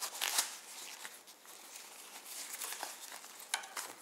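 Crinkling and rustling of a packable daypack's thin, water-resistant fabric as it is squeezed and wrapped into its mesh stow pouch. The loudest rustle comes right at the start, with smaller ones throughout and another sharp crinkle near the end.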